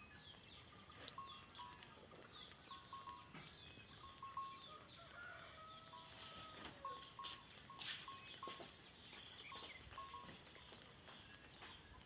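Faint goat bleating once, a long wavering call about halfway through, among many short, repeated high-pitched notes and chirps.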